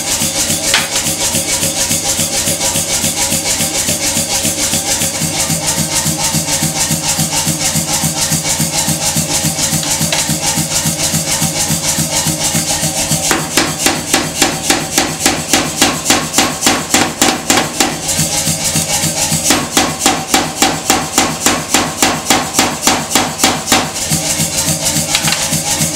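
Power hammer striking a top tool on glowing hot rebar in rapid, even blows, about four a second, over background music with a shaker rhythm. The blows come strongest in two runs of several seconds in the middle and latter part.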